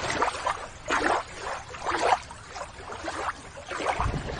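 Water splashing and sloshing in a few irregular splashes, as a toy sea animal is put back into the water and stirred with a hand net.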